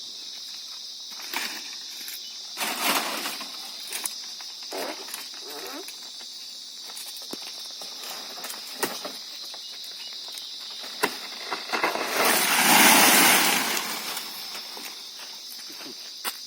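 Insects chirring steadily in a high, continuous drone, with scattered short knocks and rustles. About twelve seconds in, a loud rushing, rustling noise lasts roughly two seconds.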